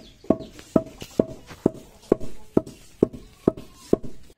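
Long wooden pestles pounding palay in a wooden mortar, two pounders striking in turn about twice a second. Each stroke is a hollow wooden knock with a short ring. The rice grains are being pounded flat to make pinipig.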